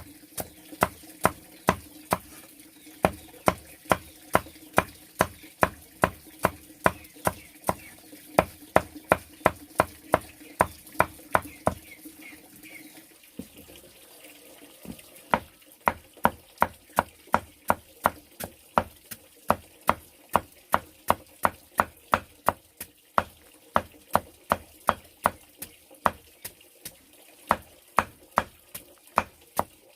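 Steady chopping with a knife, about two to three sharp strokes a second, with a short pause about halfway before the chopping resumes.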